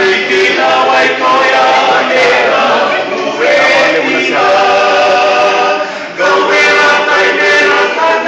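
Small vocal group singing unaccompanied in harmony, holding long chords, with a short break for breath about six seconds in.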